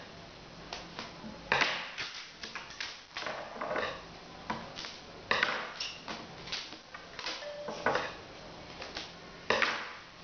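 Christmas wrapping paper being handled on a table: irregular rustling and crinkling, with several louder crackles spread through.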